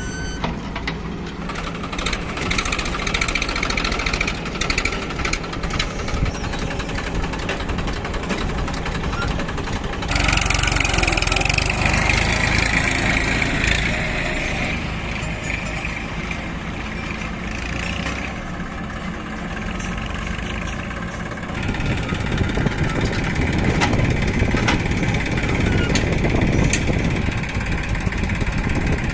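Diesel engine of heavy earth-moving or farm machinery running steadily, getting louder about ten seconds in and again after about twenty seconds as the engine works harder.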